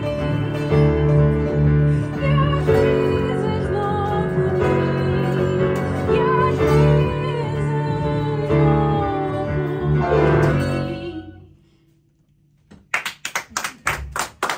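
A woman sings a slow, wavering melody over double bass, guitar and piano, and the last chord fades out about eleven seconds in. After a brief hush, scattered hand clapping starts near the end.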